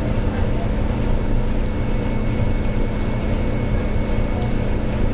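Steady low machine hum with a faint higher whine, unchanging throughout.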